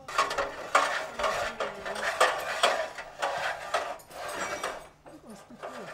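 Aluminium extension ladder clanking and rattling as firefighters raise and extend it, its metal rails and rungs knocking together many times. The clatter eases off near the end.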